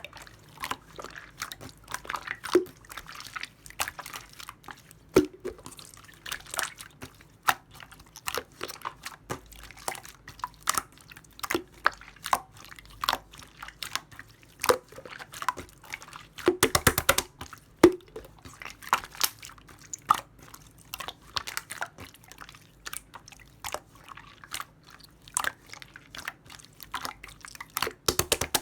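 Clear slime being squished and worked by hand, giving many small, irregular sticky clicks and bubble pops, with a quick flurry of pops about two-thirds of the way in and another near the end.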